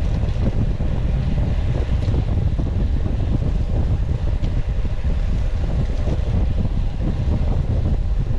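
Wind buffeting the microphone of a camera carried on a road bike moving at speed: a steady, loud low rumble of rushing air.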